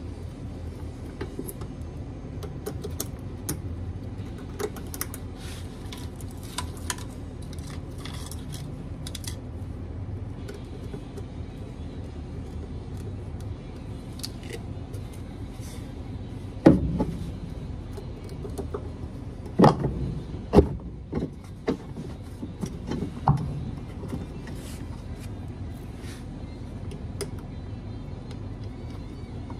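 Small metal clicks and clinks as parts are handled at the motor shaft of a washer's direct-drive motor, then about five loud knocks in the second half as parts are fitted on the shaft, over a steady low hum.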